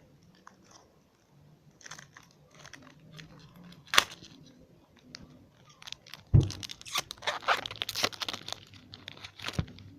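A 2012-13 Score hockey card pack's wrapper being handled and torn open, with a sharp click about four seconds in and loud crinkling and tearing in the second half.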